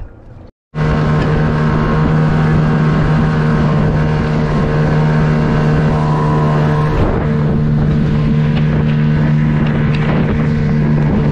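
Tohatsu 9.8 hp outboard motor running at a steady speed with the boat under way: a constant engine hum over water and wind noise. It cuts in suddenly about a second in.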